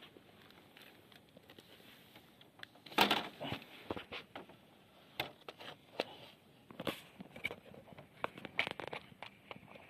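Handling noise around a plastic crate: scattered light knocks, clicks and rustles, the loudest knock about 3 seconds in.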